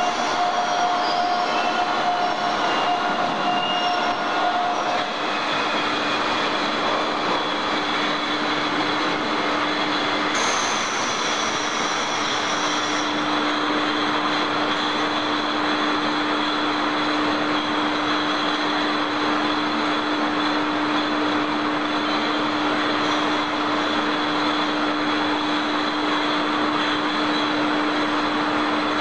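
Bottle-handling machinery of a glass-bottle hot-water sterilizer line running steadily: a constant mechanical rush over a low hum, with a thin whine that stops about five seconds in.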